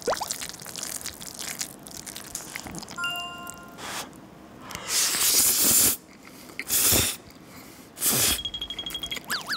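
Close-miked ASMR eating of red-sauced noodles from a fork, with three loud wet slurps in the second half and quieter mouth and chewing sounds between them. Short electronic beep-like sound effects come in about three seconds in and again near the end.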